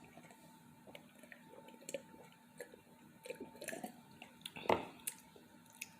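Close-up chewing of a peanut butter sandwich: wet mouth clicks and squishes, with the loudest one about three-quarters of the way through.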